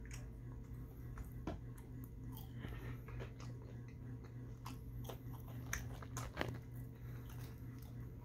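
Mouth chewing seasoned French fries dipped in ketchup, with irregular soft wet clicks and crunches, a few louder about a second and a half in and past the middle, over a steady low hum.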